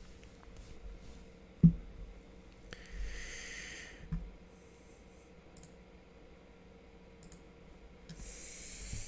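Quiet room tone at a computer desk with a sharp knock a little under two seconds in, a few faint clicks, and breaths into a close microphone.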